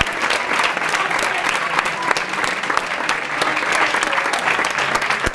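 A large audience of students clapping together in sustained, dense applause.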